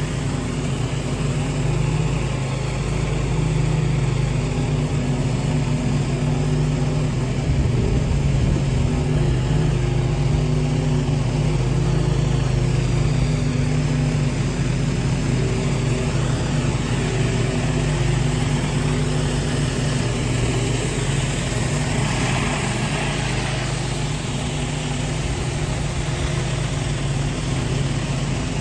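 Gas engine of a pressure washer running steadily under load, with the hiss of the high-pressure water spray on concrete; the spray grows louder a little past the middle.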